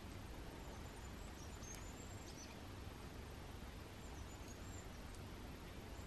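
Small songbirds calling in the treetops: a few groups of faint, very high-pitched, thin chirps with short pitch slides, about a second in, around two seconds, and again around four and a half seconds, over a quiet, steady forest background.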